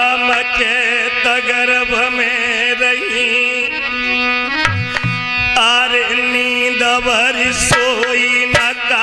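A man singing long, wavering, drawn-out notes of a devotional song over steady held instrumental tones, with a few tabla strokes about five seconds in.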